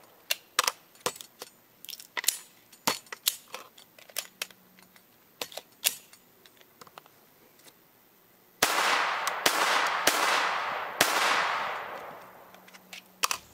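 Metal clicks and clacks of an AR-15's action being handled, then four rifle shots about a second apart from the lightweight bolt carrier group rifle firing 68-grain rounds, each with a long echo dying away. The rifle is hot and uncleaned after some 850 rounds fired back to back.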